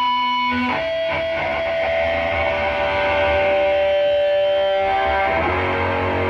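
Live hardcore punk band's amplified electric guitar and bass holding long distorted notes, the pitches changing about a second in and again near the end.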